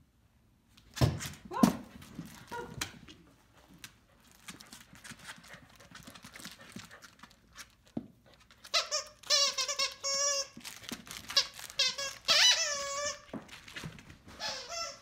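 Corgi giving high, warbling whines and howl-like calls in several runs over a few seconds, after two short loud sounds near the start.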